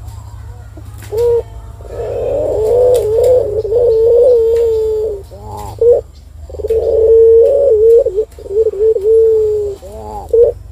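Caged Barbary dove (puter) cooing: a short note, then two long, wavering, rolling coos with a brief pause between them.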